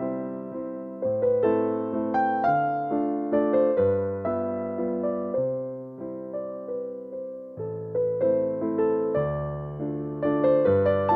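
Soft background music: a gentle melody and bass line played on piano or electric piano, notes struck and fading in a slow, even rhythm.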